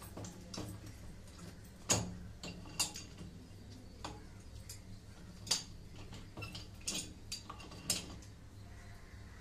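Irregular metallic clicks and clinks of a pipe wrench working the threaded fitting of a brass solenoid valve, the sharpest about two seconds in.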